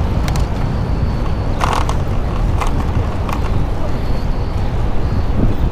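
Steady low rumble of wind and road noise on a camera riding along on a moving bicycle, with a few short rattles and clicks.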